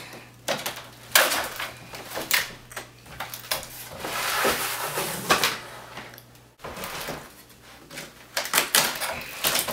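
Cardboard shipping box being forced open by hand: a run of sharp knocks, scrapes and cardboard cracks, with a longer stretch of rustling and tearing about four to six seconds in.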